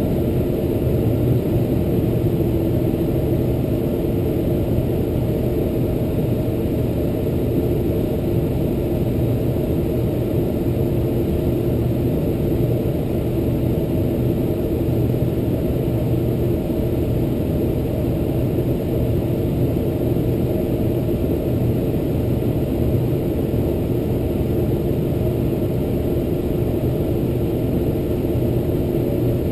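Boeing 747-400 jet engines running at idle on the ground, heard inside the cabin next to the wing: a steady drone with an even hum.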